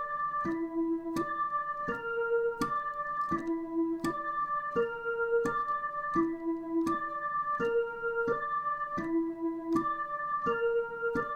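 Dutch ambulance siren sounding as a repeating broken chord: separate electronic notes, each starting sharply and lasting well under a second, step through the notes of a chord in a cycle, rather than gliding in pitch.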